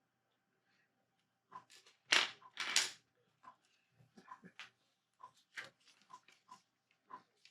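Lego bricks being handled and fitted together: a run of small, irregular plastic clicks, with two louder, longer rustles of pieces a little over two seconds in.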